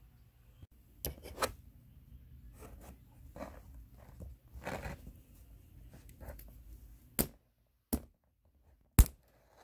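Rustling and scraping as a cherry pit is set in pliers on a steel block, then three sharp hammer strikes on the pliered pit about a second apart, the last the loudest, cracking the pit's hard shell.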